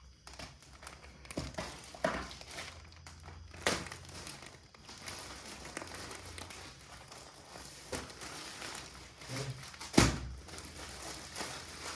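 Plastic packaging crinkling and rustling as items are unpacked by hand, with scattered clicks and one sharp knock about ten seconds in.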